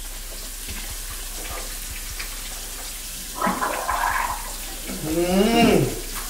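A man gargling water with his head tipped back, ending in a wobbling, voiced gargle about five seconds in, over a steadily running kitchen tap. He is trying to cool a mouth burnt by very hot pepper.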